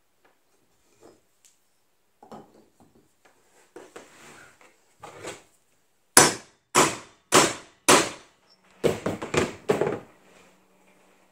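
Hammer blows on a grommet setting tool, driving a #4 spur grommet through fabric against a wooden block. After a few seconds of soft handling noises come four sharp strikes about half a second apart, a short pause, then three lighter, quicker strikes.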